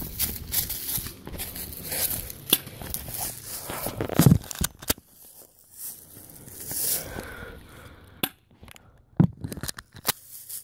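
Rustling and crinkling handling noise, broken by scattered sharp clicks and knocks, the loudest about four seconds in and about nine seconds in.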